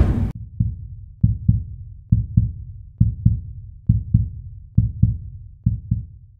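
Heartbeat sound effect: deep, soft thumps in lub-dub pairs, a little under one pair a second, used as a suspense cue in the film score.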